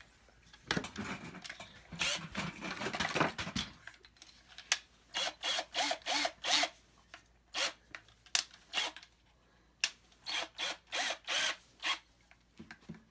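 Power drill boring into wood to widen a hole with a larger bit. It runs steadily for about three seconds, then in a string of short trigger bursts about two a second.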